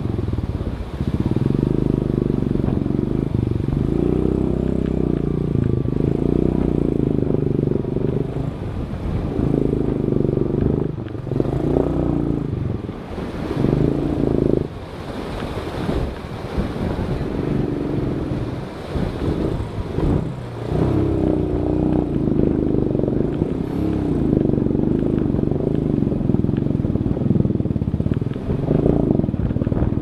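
A vehicle engine running under load, its pitch wavering up and down as the throttle changes, with a few brief drops in level partway through.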